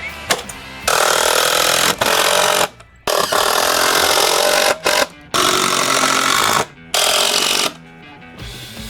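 Power tool running in four bursts of one to two seconds each, with short pauses between them.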